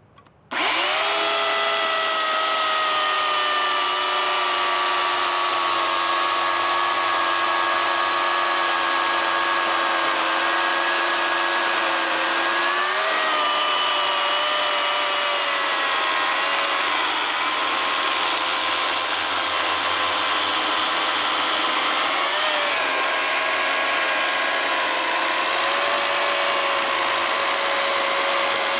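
Oregon CS1500 self-sharpening corded electric chainsaw switching on about half a second in and running steadily with a whine while cutting into a large log. Its pitch wavers briefly twice as the chain works through the wood.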